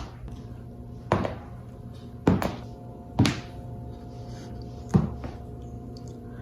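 A series of five sharp thuds or knocks, unevenly spaced about a second apart, over a steady hum with a few held tones.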